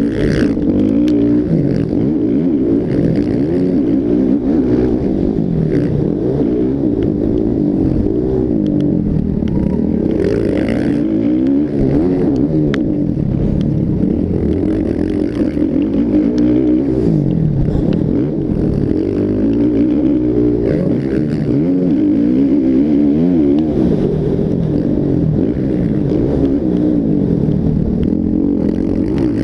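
Several motocross bikes racing, their engines revving up and down over one another with constantly rising and falling pitches.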